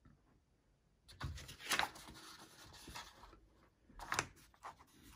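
Rustling and rubbing of paper instruction booklets being handled on a tabletop, in two spells: one about a second in and a shorter one near four seconds.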